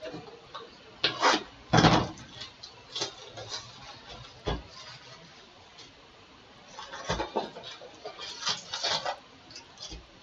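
Cardboard trading-card hobby box being handled and opened on a tabletop: a few scattered knocks and thumps, the loudest about two seconds in, with rustling of the box and its wrapping near the end.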